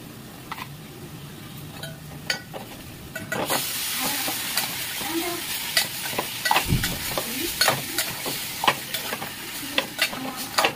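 Food frying in hot oil in a pan, with a spoon stirring and scraping against the pan. The sizzle starts suddenly about three and a half seconds in and stays loud, with frequent sharp clicks of the spoon.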